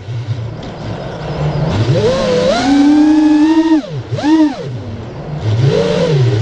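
FPV freestyle quadcopter's brushless motors and propellers whining, the pitch rising and falling with the throttle. It hums low for the first couple of seconds, then climbs to a high whine. Near the four-second mark it drops sharply, gives a short burst, falls low again and rises near the end.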